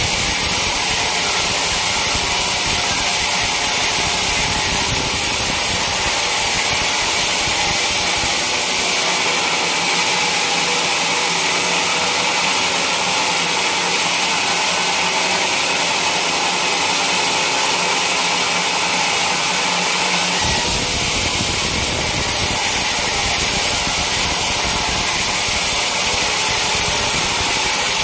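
Sawmill saw running steadily and cutting through a teak log. The deeper rumble fades for about ten seconds in the middle, then comes back.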